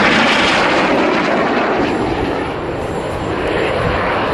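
Jet roar of RAF Red Arrows BAE Hawk T1 jets flying past in formation. The noise is loudest at the start, eases a little midway and builds again near the end as more aircraft pass.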